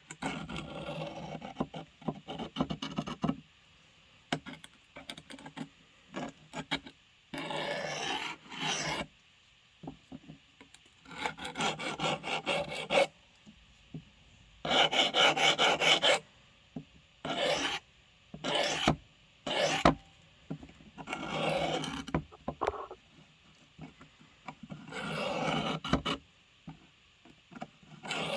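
Steel blade being stroked by hand across a sharpening stone, in bouts of scraping strokes a second or two long with short pauses between.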